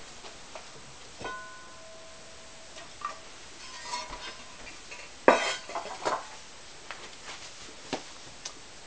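Glazed pottery clinking and knocking as pieces are lifted out of a kiln after a glaze firing. One clink about a second in rings briefly with a clear tone, and the loudest knock comes about five seconds in.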